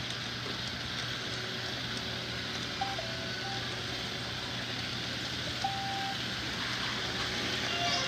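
Robot vacuum cleaners running with a steady whir and low hum. Short electronic beeps from a robot vacuum cut through: a two-note falling beep about three seconds in and a single longer beep near six seconds.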